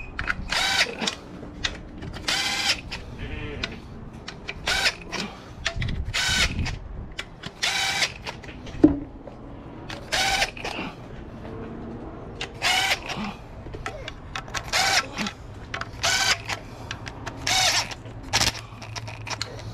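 Cordless drill/driver on its lowest setting, run in about ten short bursts a second or two apart, driving the transmission pan bolts in, with one sharp click about nine seconds in.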